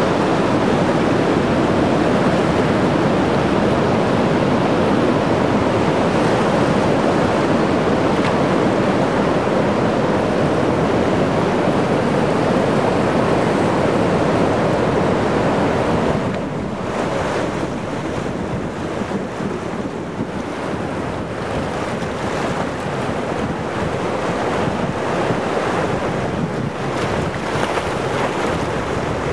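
Floodwater of the Muskoka River rushing over rapids in a steady, loud wash of water noise that eases a little about halfway through.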